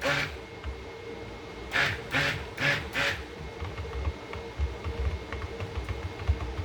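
A duck quacking: one call at the start, then a run of four calls about half a second apart.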